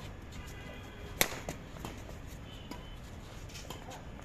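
Badminton racket striking the shuttlecock in a rally: one sharp, loud crack about a second in, followed by a few much fainter clicks.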